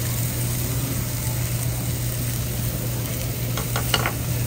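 Pork belly and chicken sizzling on a hot Korean barbecue grill plate, a steady hiss over a low hum. A few sharp clicks of metal tongs against the plate come near the end.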